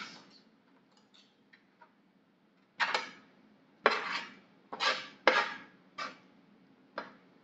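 Metal fork clinking against a metal roasting pan while roasted chicken is pulled apart: one clink at the start, then six more from about three seconds in, each with a short ring.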